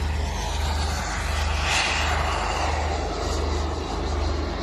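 Radio-controlled model jet flying past, its turbine's rushing whine swelling to a peak a little under two seconds in and then fading, over a steady low rumble.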